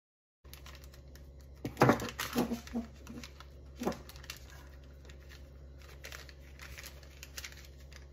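Hands pulling a cut circle of pizza dough free from the sheet, with parchment paper crinkling and soft dough tearing where the cutter did not go all the way through. There is a cluster of short, louder handling sounds about two seconds in and another near four seconds, over a steady low hum.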